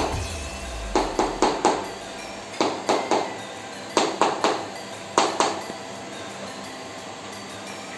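Percussive massage strikes on the body, coming in quick runs of two to four sharp hits, each ringing briefly.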